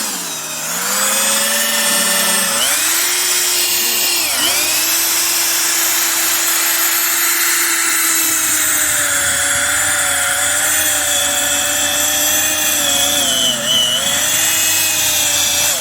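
Power drill turning an earth auger bit down into compact clay soil, its motor whining steadily. The pitch sags under load for the first couple of seconds, and briefly again about four seconds in and near the end.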